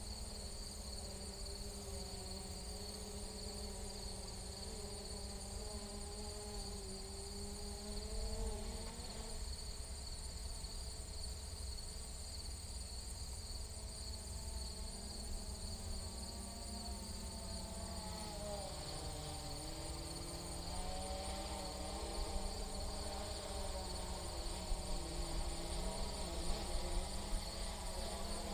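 Holy Stone HS700D quadcopter buzzing in flight at a distance, its propeller pitch wavering, dipping about two-thirds through and then climbing again. Wind rumbles on the microphone, and a steady high insect trill runs underneath.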